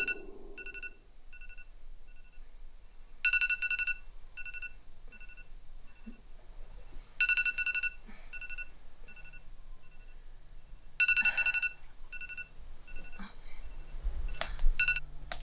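Electronic phone tone sounding about every four seconds, each chime followed by fainter repeats that fade away like an echo. A few sharp clicks come near the end.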